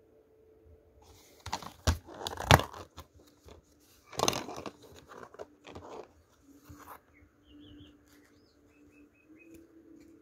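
A plastic DVD case being handled and opened and the disc pried off its hub: a run of sharp plastic clicks, snaps and rustles, loudest about two seconds in and again around four seconds. Several faint short high chirps follow near the end.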